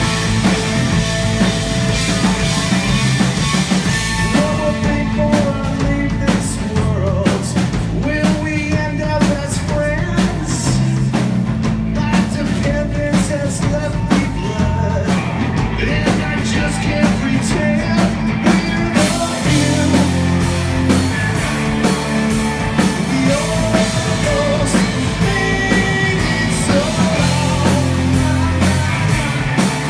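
A rock band playing live: electric guitars, bass guitar and a drum kit, with a man singing lead.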